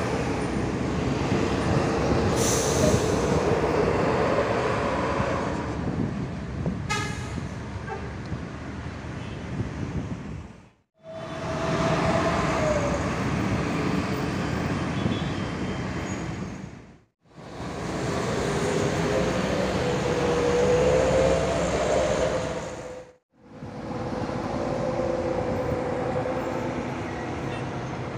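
Intercity coach buses' diesel engines and exhausts running loud as the buses pull away, with road traffic, in four short takes split by abrupt cuts. The first take is a Mercedes-Benz OH 1626 coach. A held tone rides over the engine noise in places.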